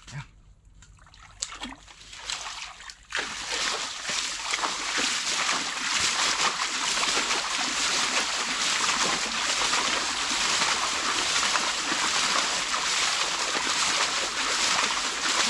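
Water splashing and rushing steadily, starting suddenly about three seconds in after a few faint clicks.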